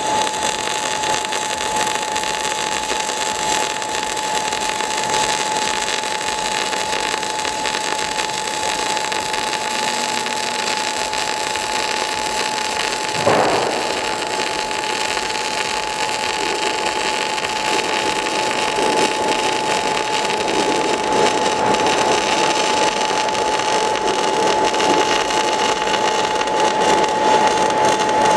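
MIG/MAG welding arc from a 500-amp semiautomatic welder run at high voltage: a steady hiss as the bead is laid, with one sharp pop about halfway and a little louder in the second half. A thin steady whine sits under it throughout.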